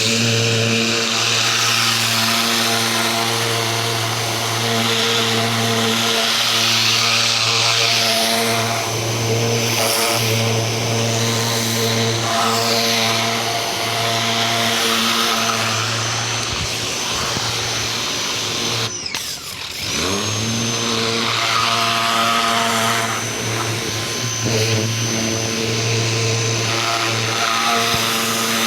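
Ryobi 2000 PSI electric pressure washer running, its motor and pump humming steadily under the hiss of the water jet on the fence. About two-thirds of the way through, the motor cuts out for about a second as the trigger is released, then starts again.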